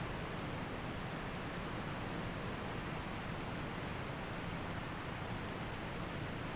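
Waterfall and stream water rushing steadily, an even hiss with no breaks.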